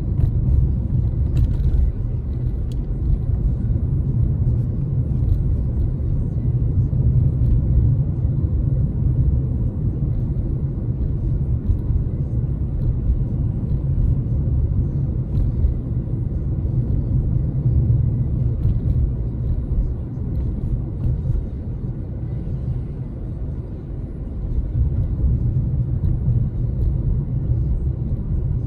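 Steady low rumble of road and engine noise inside a moving car's cabin. It eases off slightly for a couple of seconds near the end, then picks back up.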